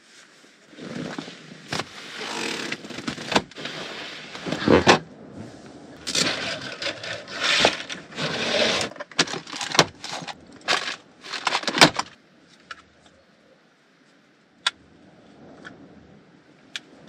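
Fabric and bedding rustling and scraping as they are handled and moved about, with scattered knocks and clicks. About twelve seconds in it goes much quieter, leaving a few faint clicks.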